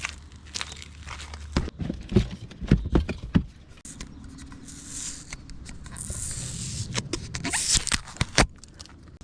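A steady low hum cuts out about a second and a half in. A cluster of knocks and scrapes follows, then a few sharp clicks near the end.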